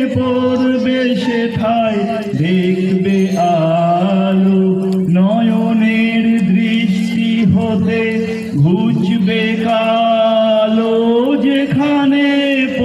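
Slow chant-like singing in long held notes, each sustained for a second or two before the voice steps to the next pitch.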